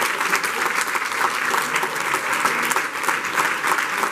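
A roomful of people applauding: many hands clapping densely and steadily.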